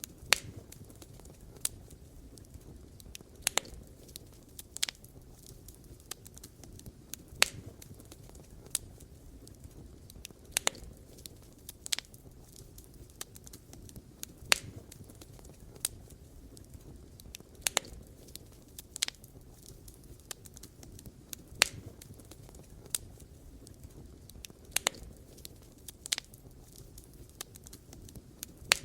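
Campfire burning: a steady low rumble of the flames with irregular sharp crackles and pops of burning wood, a few loud pops standing out.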